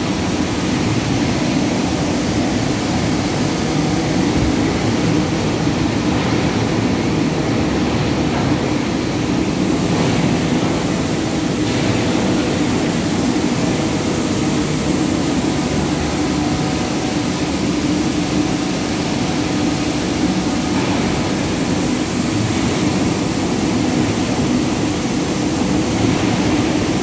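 Palm oil mill machinery running: a loud, steady industrial din with faint constant hums.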